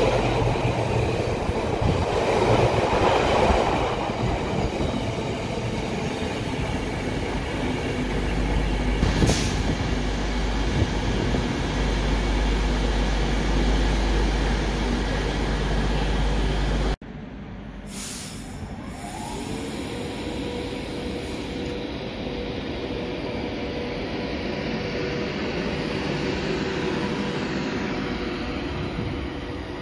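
A train running, a loud rumble of wheels on the rail with a low hum joining in partway through. About 17 seconds in the sound cuts off abruptly, and quieter train running follows with a steady whine.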